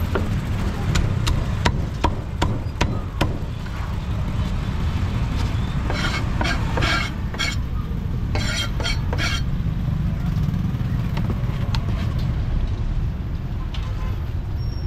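Meat cleaver chopping roast duck on a thick wooden chopping block: a quick run of about eight sharp chops in the first three seconds. A steady low rumble of traffic runs underneath.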